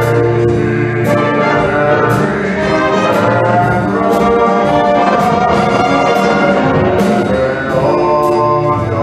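A band playing swing music, led by brass with trombones and trumpets sounding full chords, over sharp percussion hits about once a second.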